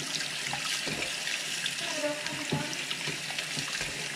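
Kitchen tap running into a stainless steel sink as cooked mud crabs are rinsed and cleaned by hand, water splashing with scattered small knocks.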